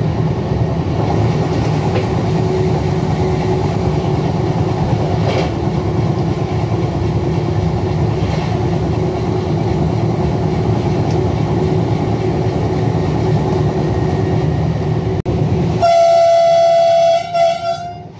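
Train running along the track, heard from the driver's cab: a steady rumble of wheels and traction with a constant hum. About sixteen seconds in, the train's horn sounds loudly for about two seconds, then fades.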